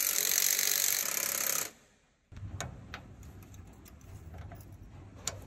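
A loud, steady hiss that cuts off abruptly about a second and a half in. After a short gap come light metal clicks and knocks as a clutch shaft assembly is handled and seated in the gearbox housing.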